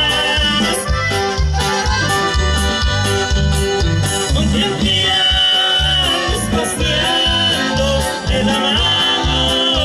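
Live Mexican regional band playing an upbeat tune: accordion and saxophone carrying long held notes over electric bass and a steady drum beat, heard through the PA.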